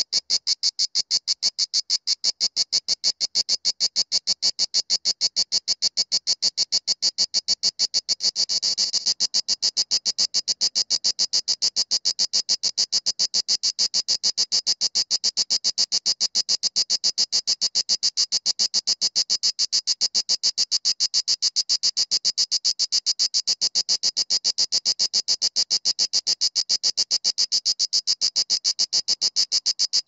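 Mediterranean cicada (Cicada orni) singing: a fast, even train of short, high-pitched clicks, briefly running together into one continuous buzz about eight seconds in.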